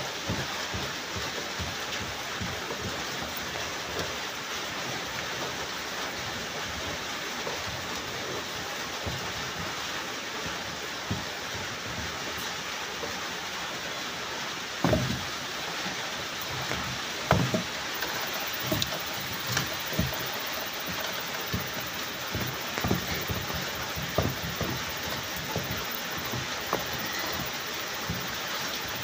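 Steady rain, with scattered dull knocks from a wooden cooking stick stirring and pressing stiff porridge in a metal pot.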